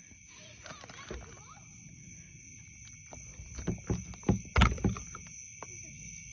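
Footsteps and knocks on a boat's deck: a few scattered thumps, thickening between about three and a half and five seconds in, the loudest near four and a half seconds. A faint steady high whine sits underneath.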